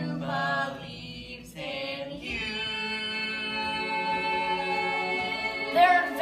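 Young stage-musical cast singing with musical backing: a short sung phrase, then one long held note from about two seconds in, with new voices coming in near the end.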